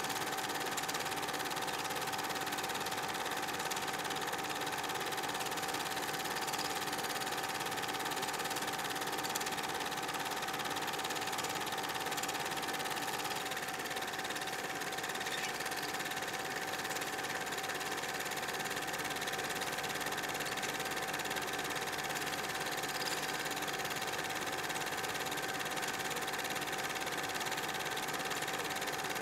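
8 mm film projector running: a steady mechanical whir with a constant high whine.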